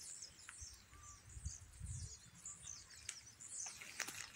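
Small birds chirping over and over in high, quick, falling notes, faint against a low rumble of wind or handling noise on the microphone, with a few light clicks near the end.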